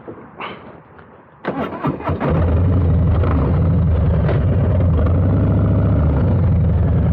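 2022 Harley-Davidson Low Rider S's 117 Milwaukee-Eight V-twin, with a Two Brothers 2-into-1 exhaust, being started: a brief crank about one and a half seconds in, then it fires and settles into a loud, steady, lumpy idle.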